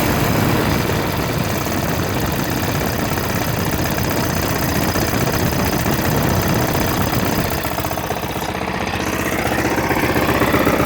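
Kohler Courage 20 horsepower engine of a Husqvarna riding mower running steadily at idle, with a cracked block that lets the cylinder and head move with every piston stroke.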